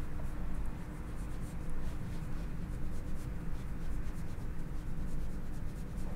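Kitchen knife making quick, light cuts through a thin slice of carrot onto a wooden cutting board: a run of soft, irregular taps and scratches, over a steady low hum.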